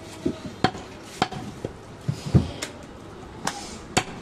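Large butcher's knife chopping goat leg meat against a wooden log chopping block: about nine sharp knocks at uneven spacing, the loudest about two and a half seconds in.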